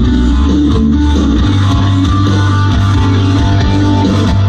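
Guitar-driven rock music with electric guitar and bass, played loud through the speakers of a Sony DAV-DZ175 home theatre system.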